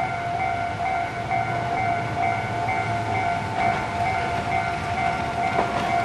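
Japanese railway level-crossing alarm ringing its repeating electronic ding, about two strokes a second. From about three and a half seconds in, a Hiroden tram approaching over the rails adds a growing clatter.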